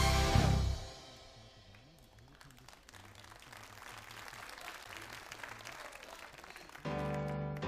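A live stage band's full music ends abruptly under a second in, followed by audience applause. Near the end, loud piano chords start up.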